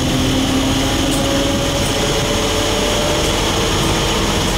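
Electric MEMU train under way, heard from aboard: a steady rush of wheel and running noise with a faint motor whine.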